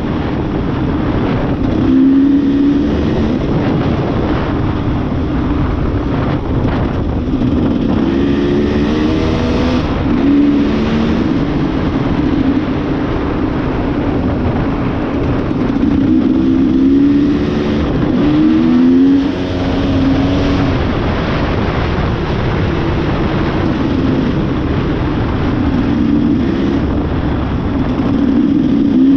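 Dirt bike engine revving up and down repeatedly while riding off-road, over a steady rushing noise.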